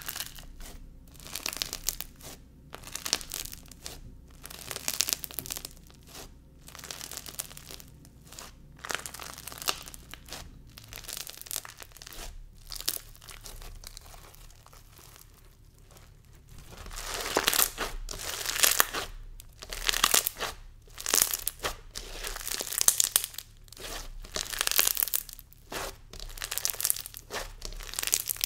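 Clear, inflated bingsu slime packed with green bingsu beads being pressed, spread and squeezed by hand: crunchy crackling in irregular bursts, louder and busier in the second half.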